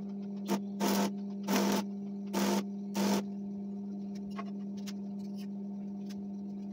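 Stick arc welding on steel: five short hissing bursts of the arc, about half a second apart, in the first three seconds or so, as a flat steel bar is tacked onto the edge of the opening in a steel gas cylinder. A steady electrical hum runs under it, and a few faint ticks follow.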